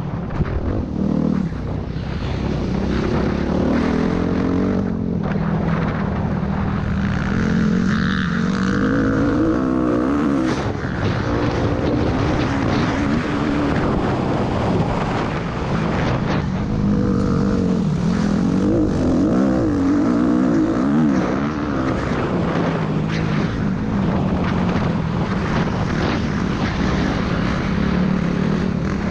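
Motocross bike engine being ridden hard, its pitch repeatedly climbing and dropping as it revs, shifts and rolls off, with wind noise on the microphone.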